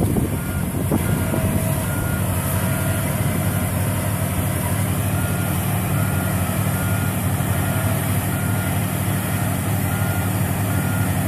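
Laverda M304 LS combine harvester running at working speed while harvesting and unloading grain into a truck: a steady engine and threshing drone. Over it, a short high electronic beep repeats on and off.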